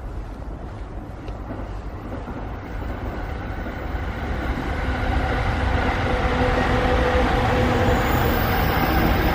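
Low rumble of a passing vehicle, growing steadily louder, with a steady hum coming through in the second half.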